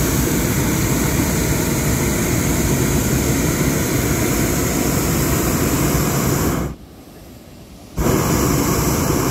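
Hot air balloon's propane burner firing with a loud, steady roar. It cuts off about six and a half seconds in and fires again just over a second later.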